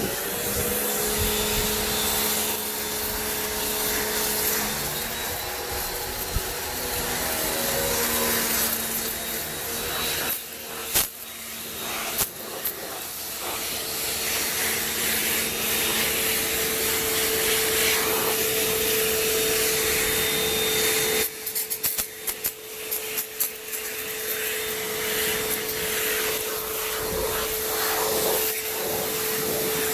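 Electric pressure washer running, a steady motor-and-pump whine under the hiss of the water spray, with a few brief drops and a choppy stretch about two-thirds of the way through.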